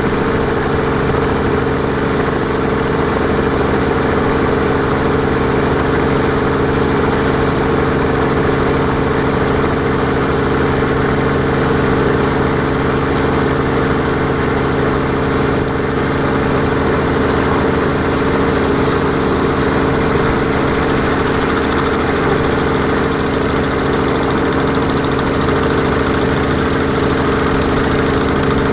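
A multirotor drone's motors and propellers heard from on board, a steady droning hum whose pitch and loudness hold constant throughout.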